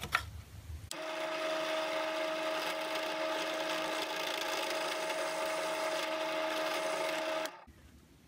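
Drill press running with a 3/16-inch bit, widening the top of a drilled screw hole in steel bar stock: a steady hum with a high cutting noise over it. It starts about a second in and cuts off abruptly near the end.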